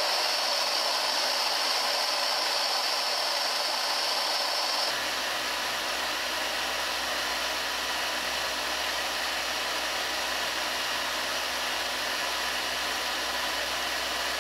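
Eight 12 V 775-size DC motors running together through a 3D-printed ABS reduction gearbox, a steady whirring whine as it lifts a 10 kg load. About five seconds in the high whine drops away and a low hum comes in, and the running goes on steadily.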